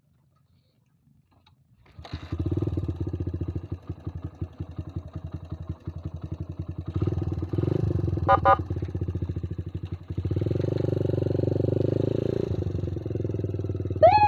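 A motorcycle engine starts about two seconds in, then runs with a steady pulsing beat. A short electronic double beep comes near the middle, and a siren tone begins falling at the very end.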